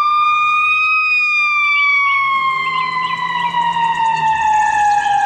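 Ambulance siren wailing: its pitch rises slowly for about the first second, then falls slowly and steadily.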